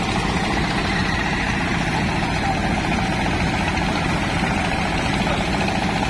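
Engine-driven rice thresher running steadily while threshing harvested rice stalks, a continuous engine drone with a faint steady whine.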